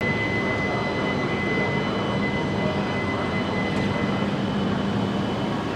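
Steady machine hum and fan-like rush of a Shinkansen train standing at the platform, with a high steady tone that stops about four seconds in and a low hum that fades near the end.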